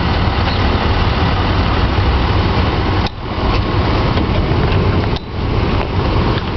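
School bus engine running with a steady low rumble under a broad noise, dipping briefly twice.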